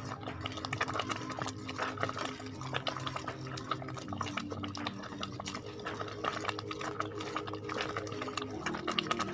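Metal ladle stirring thick mung bean porridge in a stainless steel pot: repeated scraping and clinking against the pot with wet sloshing, as the tapioca-thickened porridge starts to set. Soft background music plays underneath.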